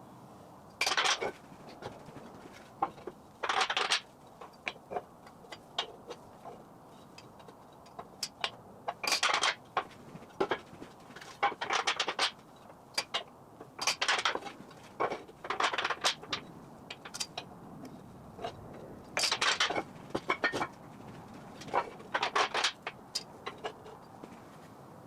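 Short bursts of metallic clinking and clattering from work on steel parts, about a dozen, irregularly spaced, over a low steady background.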